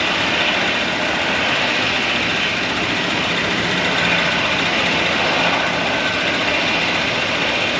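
Jet airliner engines running, a loud, even rushing noise that neither rises nor falls.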